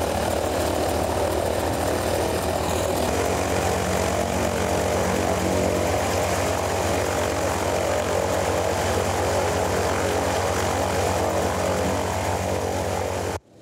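Antonov An-2 biplane's nine-cylinder radial engine running steadily, propeller turning, close by at the open cabin door. The sound cuts off suddenly near the end.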